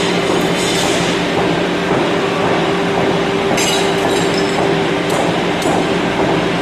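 Power hammer running with a loud, steady mechanical hum, with a few brief sharper noises about halfway through.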